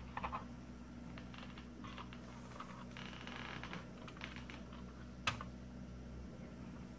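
Faint clicks and light taps of a metal hard-drive housing being handled and fitted back into a mini desktop PC's chassis, with one sharper click about five seconds in. A steady low hum runs underneath.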